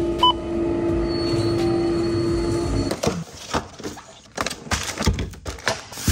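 A self-checkout barcode scanner gives one short beep as an item is scanned, over a steady low hum. About three seconds in, groceries are set down on a kitchen counter: a run of sharp knocks, with plastic produce bags crinkling.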